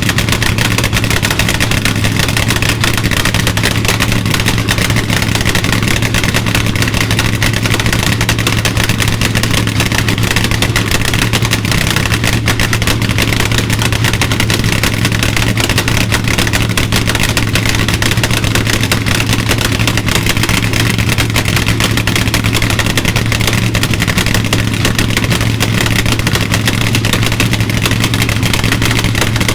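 Nitro-burning Hemi V8 of a rear-engine Dodge Dart funny car idling loudly at a steady pitch.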